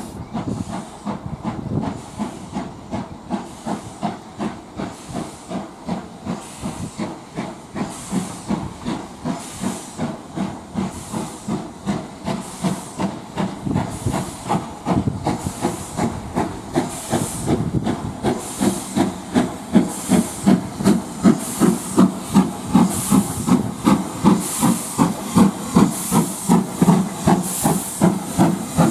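Steam locomotive working, most likely GWR Castle class 4-6-0 No. 4079 'Pendennis Castle' with its four cylinders: a steady run of exhaust beats, about one and a half to two a second, with a hiss of steam. The beats grow louder toward the end.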